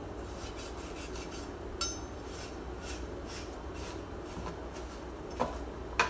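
Kitchen knife slicing and scraping fat off a raw beef roast on a plastic cutting board, a soft repeated rubbing. There is a sharp ringing clink about two seconds in and two knocks near the end.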